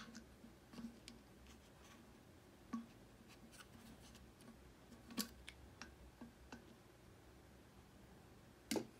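Plastic clicks and light knocks as a tumbler's flip-top lid is worked open and taken off. There are scattered small clicks, with a few louder knocks, the loudest near the end.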